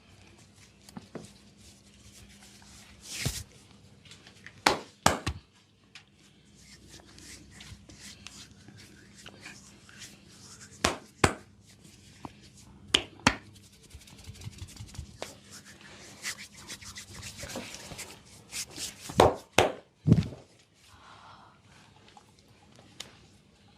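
Hands giving an oil massage, rubbing over skin, broken every few seconds by loud, sharp slaps that come in quick pairs and threes.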